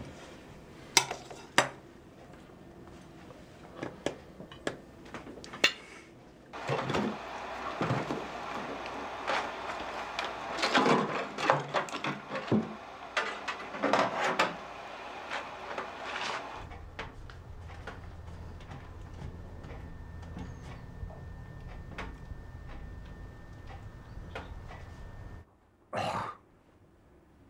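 Scattered knocks and clinks of household objects being handled, like dishes or cutlery, thickening into a denser clatter partway through. This is followed by a steady low hum with a faint thin high tone, and one short burst near the end.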